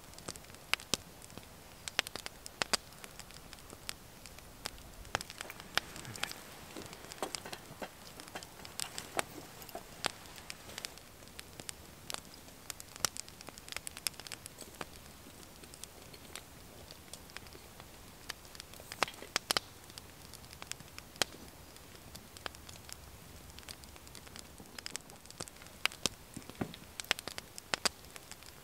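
Wood fire crackling, with irregular sharp snaps and pops.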